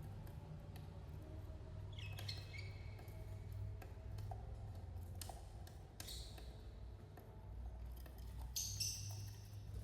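Budgerigars chirping, with a run of short chirps about two seconds in and a brighter cluster near the end, among scattered light clicks over a low steady hum.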